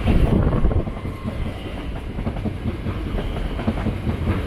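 Southern Class 377 Electrostar electric multiple unit running past along the platform: a steady rumble with a dense, rhythmic clatter of wheels over the rail joints.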